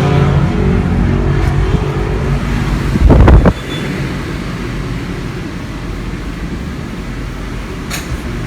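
Car engine and road noise heard from inside a moving car, with a short, very loud rush of noise about three seconds in; after it the rumble settles lower and steadier.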